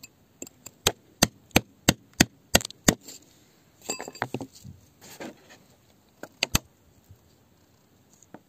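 A pointed rod striking rock in quick, regular taps, about three a second, chipping around a stone embedded in wet rock. About four seconds in, a rougher scraping and crunching of wet grit, then two more sharp taps.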